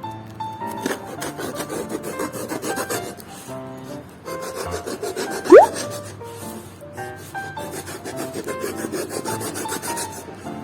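Rapid abrasive scraping strokes on metal, typical of rust being scrubbed or filed off an old hand-cranked grinder, over background music. A short, loud rising whistle-like glide cuts in about five and a half seconds in.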